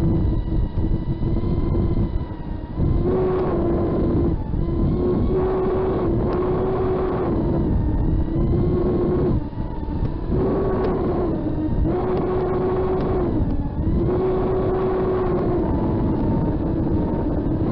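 FPV quadcopter's brushless motors and propellers whining, the pitch rising and falling with throttle, with three short dips where the throttle is cut. A steady low rumble runs underneath.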